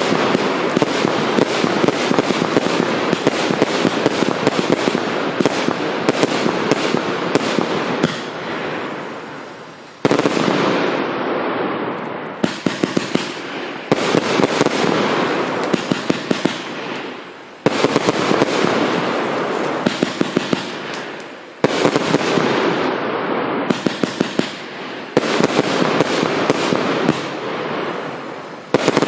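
GBV Weco St8ment 'Hermanos' firework cake firing a rapid stream of shots, a dense crackling packed with sharp pops. The crackling runs unbroken for the first eight seconds. After that it fades and starts up again with a sharp onset about every four seconds.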